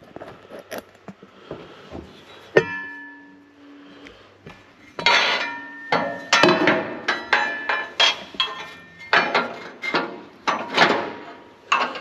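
Steel rotor parts knocking and scraping against the slotted steel drum of a pickup rotor as segments and clips are fitted by hand: one ringing metallic clink about two and a half seconds in, then a quick run of clanks and scrapes from about five seconds on.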